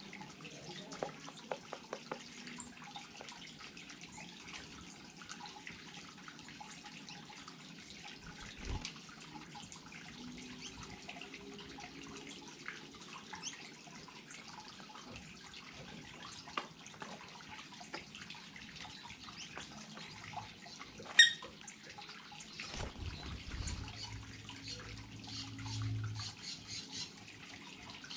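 Water of a small garden waterfall trickling and dripping steadily, with many small splashes. About two-thirds of the way through there is a single short, sharp high-pitched click, and near the end a low rumble comes and goes for a few seconds.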